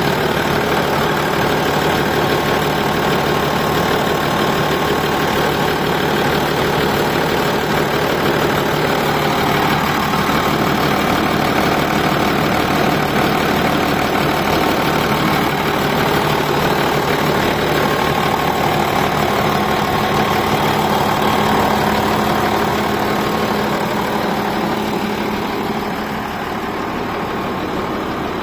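Fiat 180-90 tractor's freshly rebuilt six-cylinder turbo diesel idling steadily, heard close at the open engine bay. It gets a little quieter near the end.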